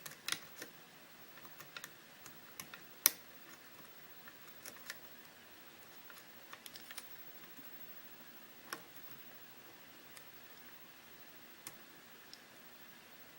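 Irregular small clicks and ticks of a hook pick and tension wrench working the pin tumblers of a Russwin lock cylinder during single-pin picking, with one sharper click about three seconds in.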